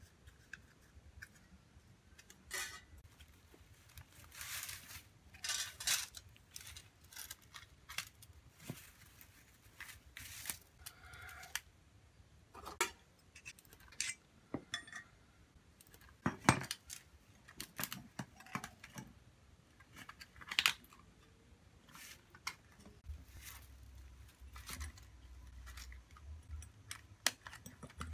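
Hand work on a stick broom head: scattered metallic clinks and taps from a tin strip being shaped and fitted around a bundle of stiff sticks, with rustling of the sticks and two sharper clicks. A low rumble comes in near the end.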